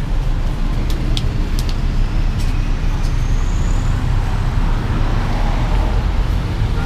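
Road traffic: a steady low rumble of motor vehicles, with a few short sharp clicks about a second in.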